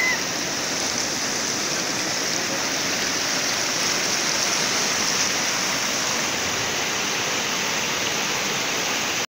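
Muddy floodwater rushing fast over a road, a steady loud rush of water. A brief high chirp sounds right at the start.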